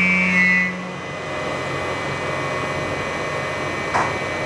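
Miyano ANX-42SYY CNC turn-mill lathe running through its machining cycle, with two tools milling a stainless-steel part at once. A steady low hum and a high whine stop about a second in, leaving an even machine noise with a brief click near the end.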